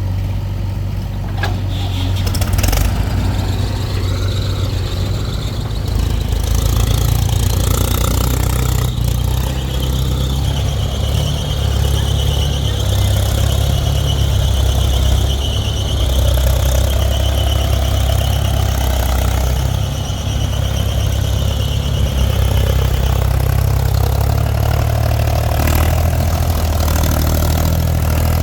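Heavy diesel earthmoving machinery running steadily under load. A high, steady squeal comes in about a third of the way through and stops a little past two-thirds.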